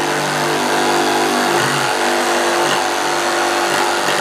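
Makita DJV184 18 V cordless jigsaw running steadily, its blade cutting a tight curve through a wooden board with the orbital (pendulum) action set to 3, its steepest blade angle.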